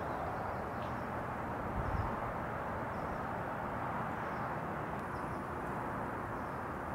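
Steady outdoor ambience: an even, low rush of background noise, with a few faint high chirps now and then.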